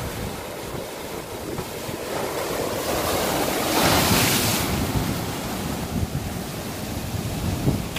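Ocean waves breaking over a rocky shoreline, surf washing and foaming between the rocks, with one bigger crash and hiss of spray around the middle. Wind rumbles on the microphone underneath.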